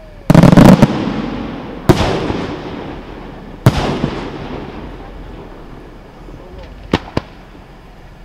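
Aerial firework shells bursting: a cluster of loud bangs just after the start, then single bangs about two and about four seconds in, each trailing off in a long fading rumble, and two fainter cracks near the end.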